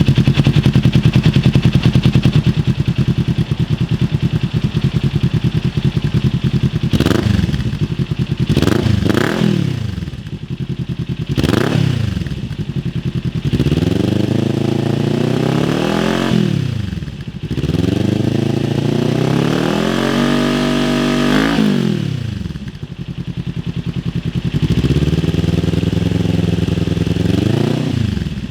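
2022 Kawasaki Ninja 400 KRT Edition's parallel-twin engine through a cheap aftermarket slip-on exhaust, idling steadily for about seven seconds. It is then blipped in a few quick revs and two longer revs that rise and fall, and settles back to idle.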